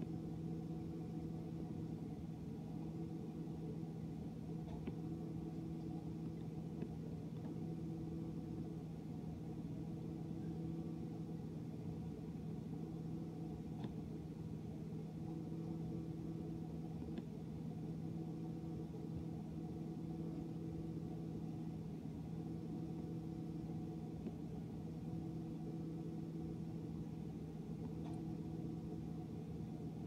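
GE dishwasher running mid-cycle: a steady motor hum, with a higher hum that fades in and out every few seconds and a few faint ticks.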